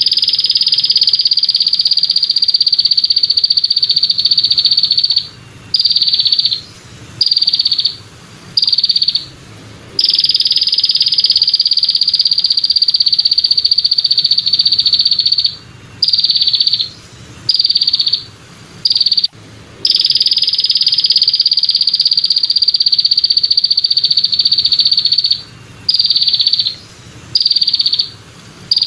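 Katydid (belalang kecek) stridulating in a repeating pattern: a high, buzzing trill of about five seconds, then about four short chirps, then the long trill again. The cycle runs through twice.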